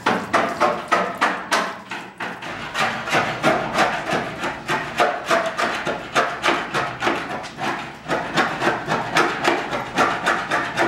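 Hand scraper chipping dry old coating and rust off the sheet-steel floor and sill of a Rover P5 body, in quick repeated strokes about three a second; the coating is so dry that it flakes off cleanly.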